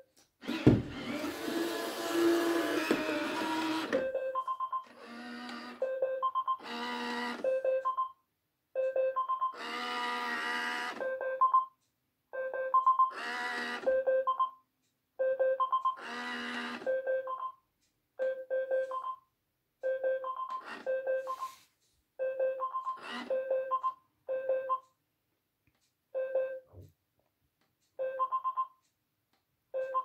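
iRobot Roomba 980 in its built-in self-test mode: short electronic beeps repeat about once a second, cut in with several brief whirring runs of its brush-roll drive motor, the longest and loudest near the start.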